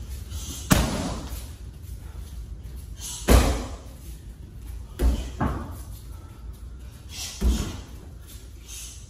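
Kicks and strikes smacking into a handheld padded kick shield: five sharp impacts a few seconds apart, two of them in quick succession about halfway through, each echoing briefly in a large hall.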